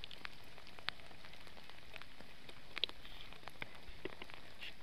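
Steady rain falling, with many scattered sharp ticks of individual drops landing close by. The shower is growing heavier.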